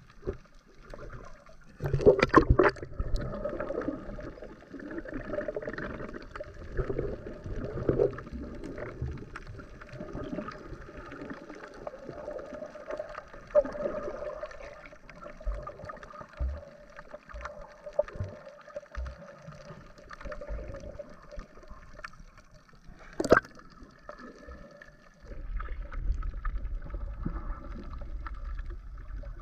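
Muffled underwater noise picked up by a GoPro Hero 7 in its waterproof housing: water swirling and gurgling around the camera with irregular knocks. The loudest are a cluster of knocks about two seconds in and a single sharp knock near the end, followed by a low rumble.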